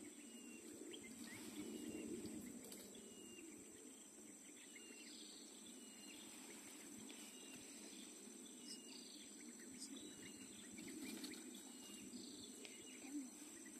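Faint tropical forest ambience: a steady high-pitched insect drone, with short chirps repeating about once a second and a low steady rumble underneath.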